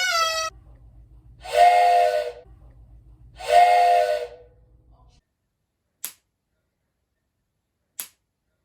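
Two short hissing whistle blasts, about two seconds apart, each with a steady tone inside the hiss. Two faint clicks follow, about two seconds apart.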